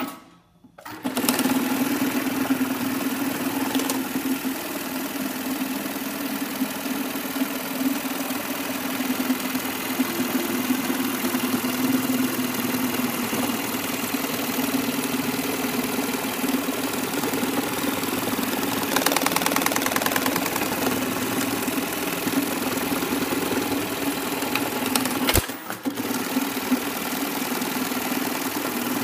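Brother BAS-326H computer-controlled industrial pattern sewing machine starting up about a second in, then running steadily at speed as it stitches a patch onto fabric. Near the end there is a sharp click and a brief drop before it runs on.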